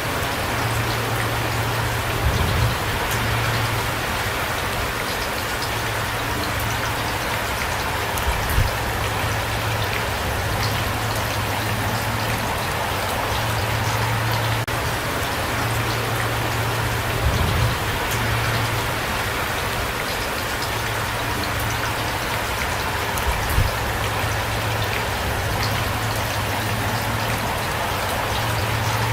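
Steady rain falling, with a few brief louder low thumps scattered through it.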